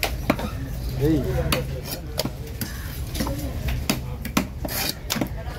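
A large fish-cutting knife knocking and scraping against a wooden log chopping block as fish is cut, with a dozen or so sharp, irregularly spaced strikes.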